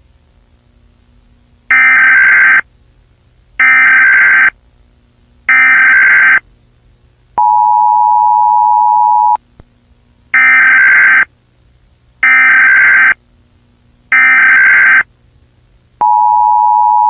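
Emergency-alert broadcast tones: three short, harsh electronic bursts about a second apart, then a steady two-tone attention signal for about two seconds. The sequence then repeats, with the second attention tone starting near the end.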